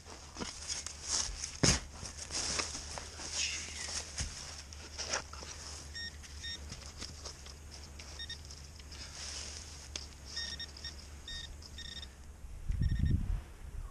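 Garrett AT Max metal detector giving short, repeated high beeps from about six seconds in as it is swept over targets. Before that come a run of sharp knocks and scrapes, and a low rumble near the end.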